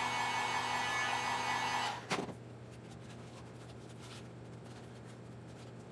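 Heat gun running with a steady whir and hum as it warms EVA foam, switched off about two seconds in with a short click. Faint room tone follows.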